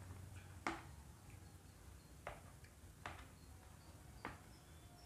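Spoon and fork clicking lightly against a plate as food is mixed: four faint, sharp ticks about a second apart.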